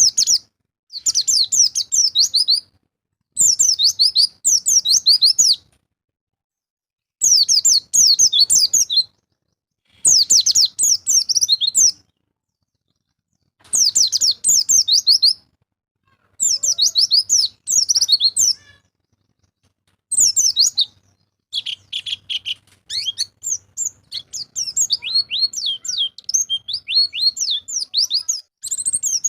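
White-eye (pleci) song: about seven phrases of fast, high twittering notes, each lasting about two seconds with a silent gap between them, then from about three-quarters of the way through an unbroken, varied chatter.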